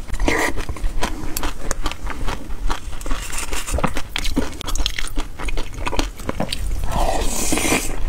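Close-miked eating of yogurt topped with black sesame seeds: quick wet mouth clicks and smacks as it is chewed, with a plastic spoon scraping the glass bowl about halfway through and a longer slurp from the spoon near the end.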